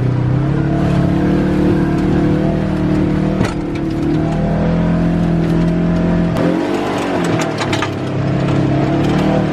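Off-road dune buggy engine running under load as it drives a rough, muddy trail, heard from inside the open cab. Its note holds mostly steady, dips about six and a half seconds in and climbs back. A few short knocks and rattles come in the middle and near the end.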